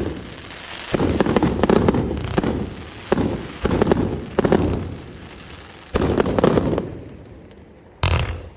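Fireworks shells bursting one after another, each a sudden bang with a cluster of crackles that fades over about a second. The bursts come in quick succession, then thin out near the end before a last one.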